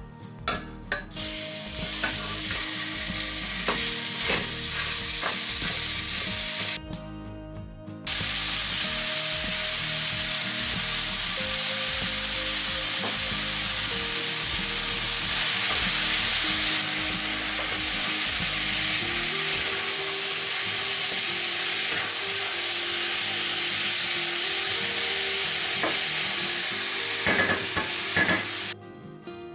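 Minced beef frying with chopped garlic in hot olive oil in a stainless steel saucepan while it is stirred. The loud, steady sizzle starts about a second in as the meat goes into the pan, breaks off briefly at about seven seconds, then continues until shortly before the end.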